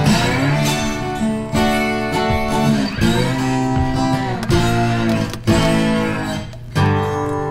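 Background music: an acoustic guitar strumming chords, which change about every second or two.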